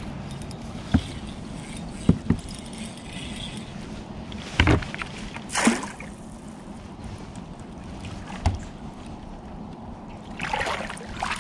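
Handling noise in a kayak on the water: a steady low wind-and-water noise with scattered knocks and thumps, a short swish about halfway through, and a rougher rush of noise near the end.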